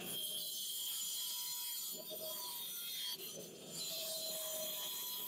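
Angle grinder cutting through steel: a steady high hiss with a thin whine that starts abruptly and briefly eases twice as the cut goes on.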